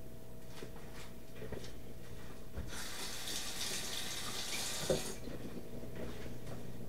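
Kitchen sink faucet running for about two seconds as hands are rinsed under it, with a sharp knock just before it shuts off about five seconds in.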